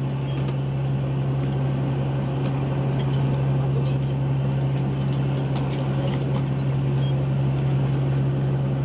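Squid-jigging boat's machinery running with a steady low hum, with scattered light clinks and clicks over it.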